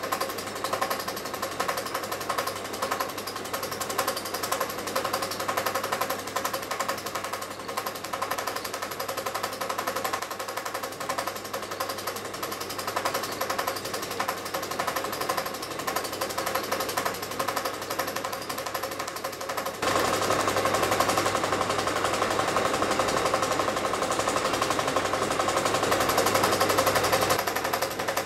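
Film projector running: a fast, steady mechanical clatter over a low hum, which grows louder about twenty seconds in.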